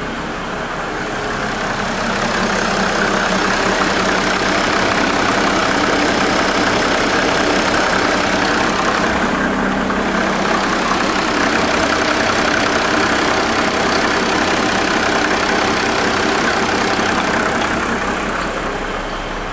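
Mercedes OM603 turbodiesel straight-six running steadily, getting louder about two seconds in and easing back near the end.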